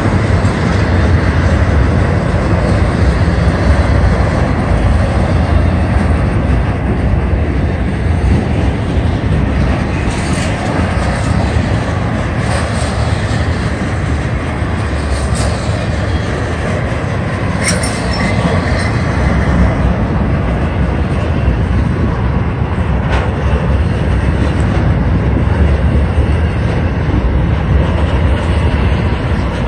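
Intermodal freight train of truck trailers on spine cars rolling past close by: a loud, steady rumble of steel wheels on the rails, with a few sharp clicks here and there.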